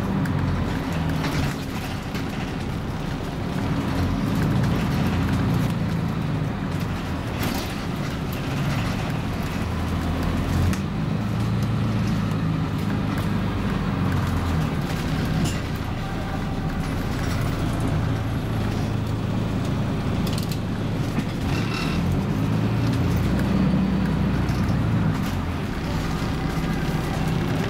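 Scania MaxCi low-floor city bus engine running under way, heard from inside the passenger cabin. Its low note steps up and down as the bus pulls away and changes speed, with a few short clicks or rattles.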